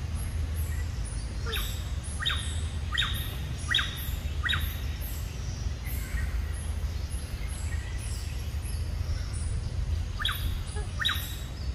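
A bird calling in a series of five sharp falling notes about three-quarters of a second apart, then two more near the end, with faint very high chirping and a steady low rumble in the background.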